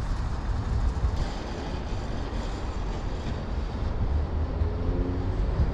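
Steady low rumble of outdoor background noise, with no distinct event; a faint pitched hum shows briefly about five seconds in.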